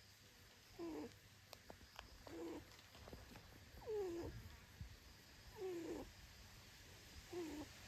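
A cat meowing repeatedly: five short calls, each falling in pitch, about one every second and a half.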